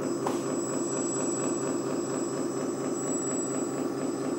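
LESU 8x8 RC hydraulic dump truck running steadily while its tipper bed is lowered: an even mechanical drone from the hydraulic pump and the model's engine sound, with a thin high whine above it.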